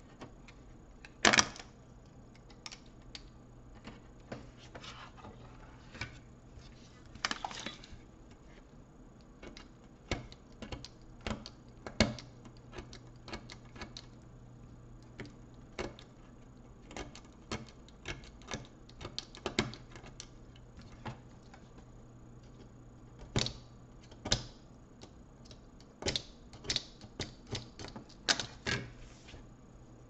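Irregular clicks, taps and knocks of a laptop motherboard and its plastic parts being handled on a workbench, the loudest about a second in, over a low steady hum.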